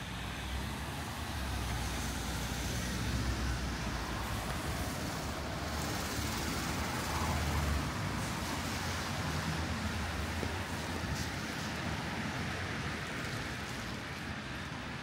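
Steady hiss of rain, with the low rumble of a motor vehicle swelling through the first half and easing off.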